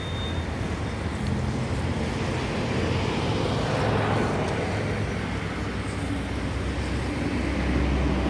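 Road traffic: vehicle engines running and passing, a steady low hum with a swell of passing-vehicle noise about halfway through.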